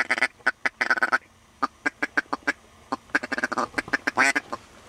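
Mallard quacking in quick runs of short, rapid quacks, three runs with brief pauses between them.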